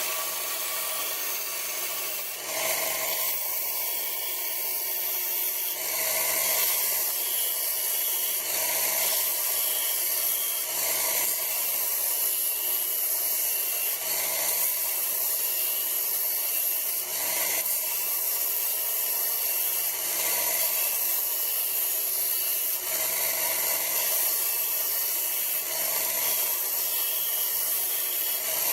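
Power grinder working the steel of a forged hammer head, a steady grinding noise that swells and eases in repeated passes every two to three seconds.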